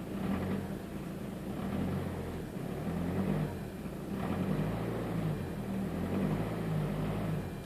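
Peugeot 407's 2.0 HDi four-cylinder turbodiesel running, its level swelling and easing every second or two, with the popping, cracking noise that the owner hears under the bonnet on the passenger side. He says it comes only with the engine cold, at 1200–1500 rpm.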